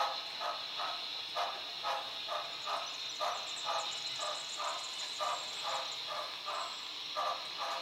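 Sound system of an HO-scale Broadway Limited Southern Pacific cab-forward steam locomotive model playing slow, even exhaust chuffs, about two and a half a second, over a steady steam hiss as the engine creeps forward.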